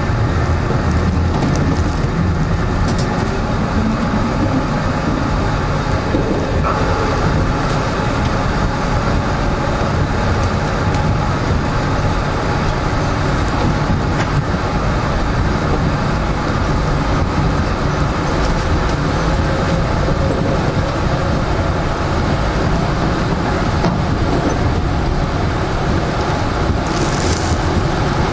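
Toronto subway train running through a tunnel, heard from inside the front car: a steady rumble of wheels on rail with a faint motor hum. A brief high hiss comes near the end.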